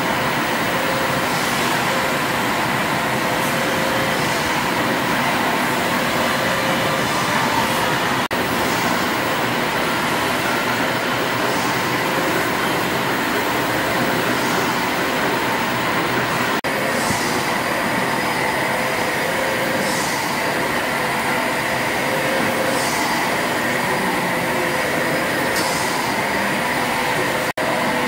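Several stationary steam engines running in an engine hall: a steady mechanical clatter and hum from their moving rods, valve gear and flywheels. Brief high hisses come about every three seconds in the later part.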